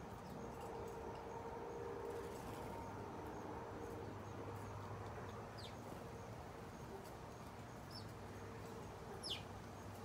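A few short chirps from house sparrows, each sweeping quickly downward in pitch; the loudest comes near the end. Under them runs a faint steady low hum.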